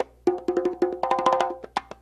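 Two Pearl Travel Congas, 11¾-inch all-wood drums with Remo Fiberskin 3 heads, played by hand in a fast pattern of slaps and open tones. The drums ring at two different pitches, one for each drum as tuned. The playing breaks off briefly right at the start, then runs on as quick strokes.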